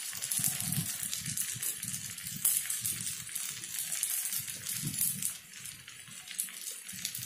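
Corn paniyaram frying in ghee in a paniyaram pan: a steady soft sizzle with fine crackling, over a low uneven rumble.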